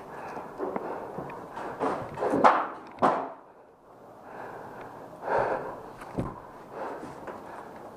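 Heavy breathing and scuffing footsteps of a paintball player moving about, with a couple of sharp knocks about halfway through.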